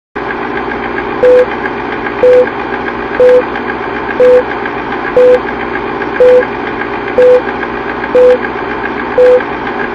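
Old film-leader countdown sound effect: a short beep once a second, nine beeps in all, over a steady film-projector whirr and rattle.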